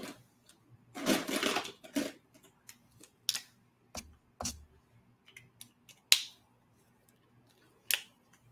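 Art markers being picked up and handled: a scatter of sharp clicks and taps, with a rustling scrape about a second in and a soft knock around four seconds in.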